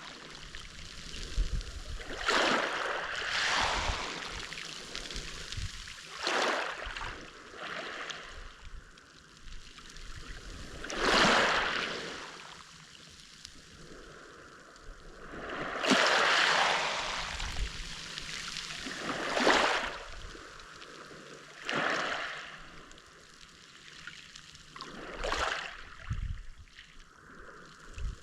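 Mediterranean Sea waves washing onto the shore. Each wave is a rushing surge that swells and fades, about one every three or four seconds, with a quieter hiss of water between them.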